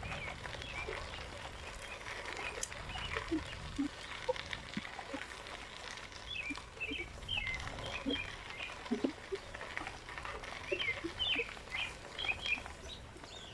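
Birds calling outdoors: many short, quick chirps, in clusters about halfway through and near the end, with short, lower calls scattered among them.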